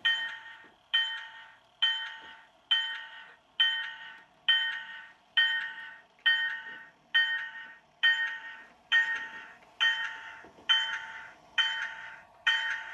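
Locomotive bell from a Bachmann N scale GG1's DCC sound decoder, ringing steadily about once a second through the model's tiny speaker, thin and with no low end.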